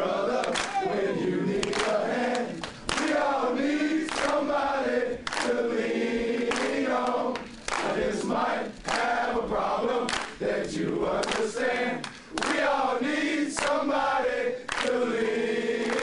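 A roomful of football players singing and chanting together in unison, in phrases broken by short pauses, with sharp shouts or claps mixed in.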